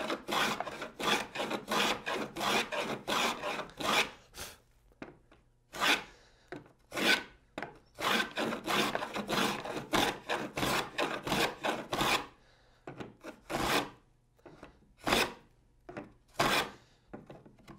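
Wooden moving fillister plane cutting a rabbet along a board, its iron shaving the wood in quick short strokes, about two to three a second. The strokes come in runs, with pauses and a few single strokes near the end.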